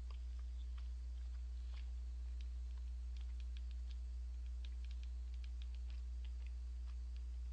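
Light, irregular clicks of thumbs typing on a smartphone, several a second and thickest midway, over a steady low hum.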